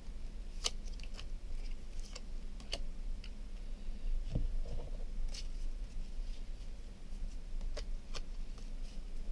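Trading cards being handled: scattered, irregular clicks and crinkles as the deck is taken out and sorted, with a soft thump about four seconds in, over a faint steady hum.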